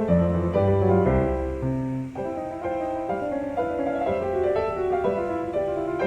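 Background piano music, notes and chords changing at an even pace.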